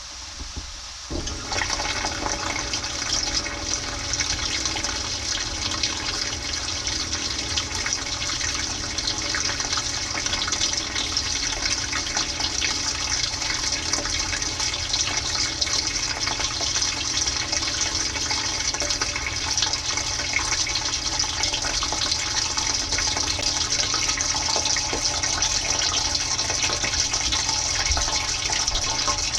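Dishwasher spraying water, heard from inside the tub: the spray starts suddenly about a second in and then hisses steadily over the low hum of the pump.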